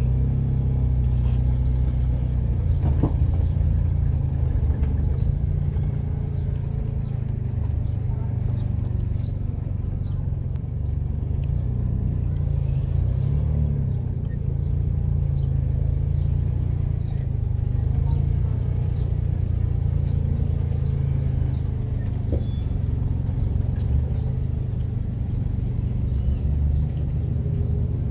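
Steady low rumble of outdoor street ambience, with faint high chirps and short clicks scattered above it.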